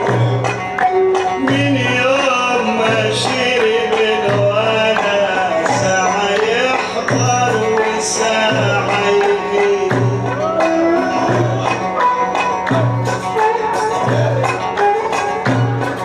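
Live Egyptian Sufi inshad music: a wavering melodic line over hand drums, a frame drum and a darbuka, with a steady low beat about every 0.7 seconds.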